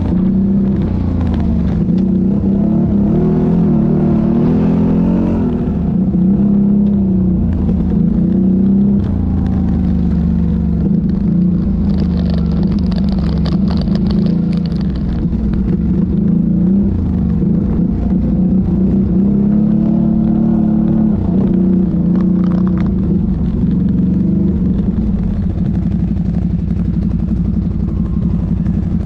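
ATV engine running under way, its pitch rising and falling as the throttle is opened and eased off.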